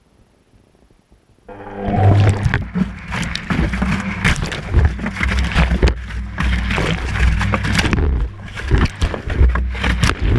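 Washing machine drum starting to turn again after a pause, heard from inside the drum: the motor comes in with a low hum about a second and a half in, followed by continuous irregular clunks and knocks as the camera tumbles with the wet laundry.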